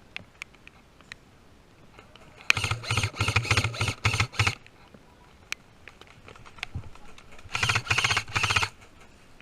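Airsoft electric gun firing two full-auto bursts, a rapid even rattle of shots about two seconds long, then another about a second long, with a few single clicks between.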